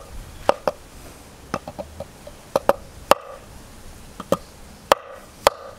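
Stainless steel knife blade pressed down through thin metal wire on a bamboo cutting board: a string of about a dozen sharp, irregular clicks as the wire snaps under the edge and the blade meets the board.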